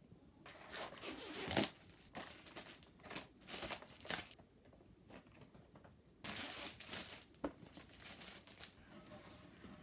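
Irregular rustling and crinkling handling noises, with a louder stretch a little past halfway, as water-cooling parts and their packaging are moved about.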